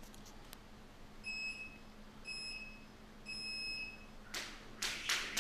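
Gym timer sounding a countdown of three beeps about a second apart. Near the end a jump rope starts slapping the floor in quick strokes, about four a second.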